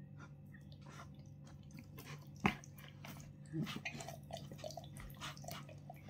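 Wet squelching and slapping of a hand rubbing olive oil into a raw whole chicken in a plastic tub, with a sharp knock about two and a half seconds in.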